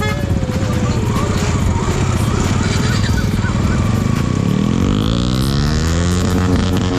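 Motorcycle engines running, with one engine revving up steadily about four and a half seconds in; faint voices in the first few seconds.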